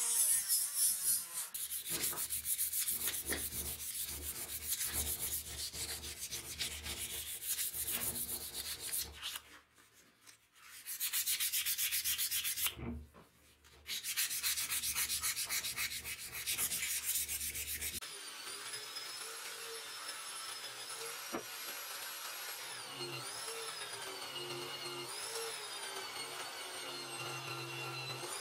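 Sandpaper rubbed by hand over a knife handle in quick strokes, with two short pauses partway through. About two-thirds of the way in, this gives way to an angle grinder fitted with a polishing wheel, its motor whine dipping in pitch and recovering each time the knife is pressed against the wheel.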